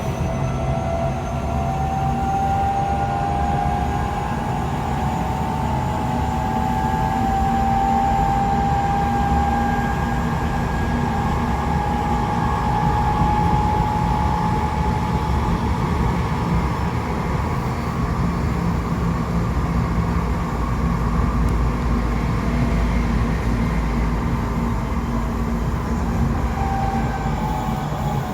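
Tokyo Metro 8000 series motor car running at speed, heard from inside the car: a steady rail rumble under a traction motor and gear whine that climbs slightly at first and then holds level. The whine sounds split into two close, clashing pitches, which the uploader suspects comes from only one axle of the bogie having had its wheels reprofiled.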